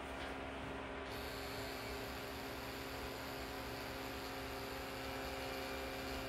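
Bronc V9 rotary pen tattoo machine with a cartridge needle fitted, running at about 8 volts: a steady, quiet motor hum. About a second in, a higher-pitched hiss joins it and stays.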